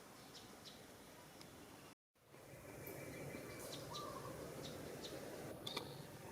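Faint outdoor ambience: short, high bird chirps and calls over a steady background hiss. The sound cuts out completely for a moment about two seconds in, then returns a little louder.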